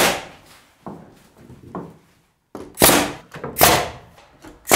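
Pneumatic angled finish nailer firing nails into wooden trim, a sharp crack with each shot: one at the start, two close together about three seconds in, and one more near the end, with lighter knocks in between.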